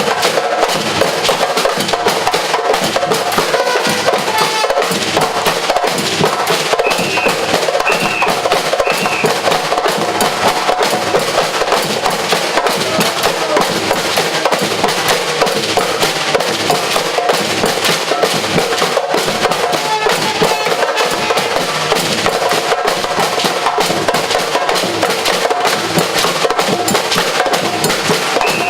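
Batucada-style percussion ensemble playing a fast, dense drum rhythm with bass drums, snares and wood-block-like hits. About seven to nine seconds in there are three short shrill whistle blasts.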